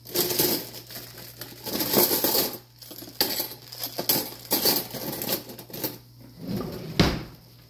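Irregular clinks, clicks and knocks of kitchen utensils and dishes being handled, with a louder thump about seven seconds in.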